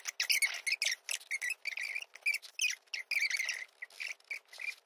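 Birds chirping, a dense run of short, wavering, high twittering notes.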